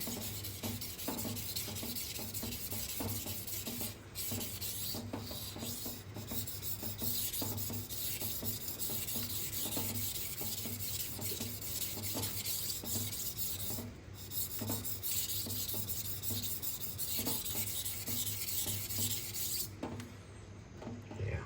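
Steel kitchen-knife blade scraped back and forth across a 1000-grit Gritomatic whetstone: a steady rasping hiss of repeated strokes while raising a burr along the edge, with a few brief pauses and stopping near the end.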